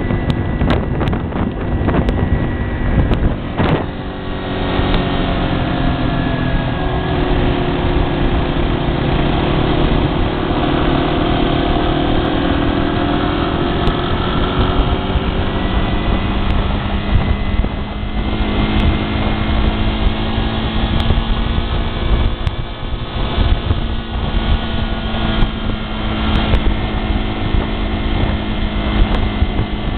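Motorcycle engine running on the road under heavy wind rush on the microphone. The engine note dips and rises through the middle, then holds steady near the end, with a few sharp knocks of wind buffeting in the first seconds.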